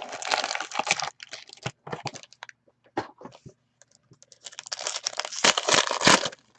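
Trading-card pack wrapper crinkling and tearing as it is opened, in two spells about four seconds apart, with light clicks and taps of cards being handled in between.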